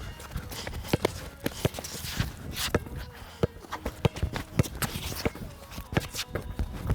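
Irregular thuds and taps of a basketball bouncing and players' sneakers stepping on the court during a one-on-one game.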